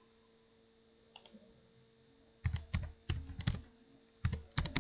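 Computer keyboard being typed: a quick run of keystrokes begins about halfway in, after a nearly quiet first half with a single faint click. A faint steady hum sits underneath.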